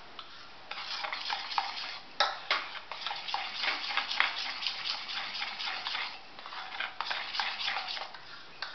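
A metal spoon beating a thick gram-flour and yogurt batter in a bowl: quick, continuous scraping, with frequent sharp clinks of the spoon against the bowl.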